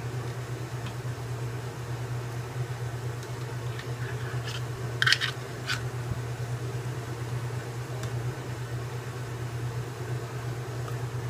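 Steady low hum in a kitchen, with a few light clicks and one sharper clack about five seconds in as ricotta is scooped from a measuring cup into a plastic mixing bowl.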